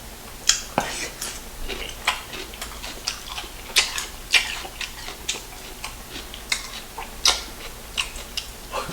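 Close-miked eating of sauce-covered fried chicken: irregular sharp, wet mouth clicks and smacks from chewing, roughly one or two a second.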